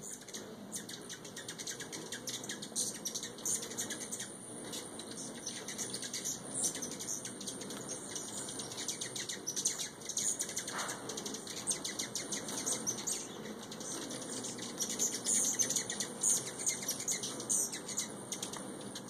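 Hummingbirds swarming a feeder: the low hum of many wings under a steady stream of rapid, high-pitched chips and squeaks, busiest near the end.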